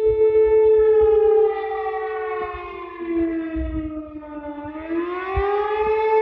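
Civil defense warning siren sounding a steady chord, then winding down in pitch from about a second and a half in and climbing back up near the end.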